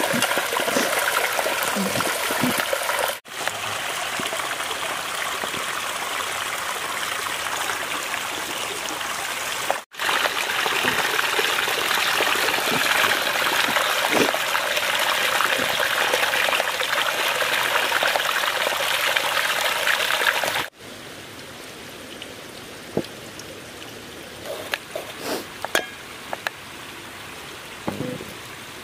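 Steady rush of running water, cut off sharply three times. About 21 s in it gives way to a quieter background with scattered clicks and knocks.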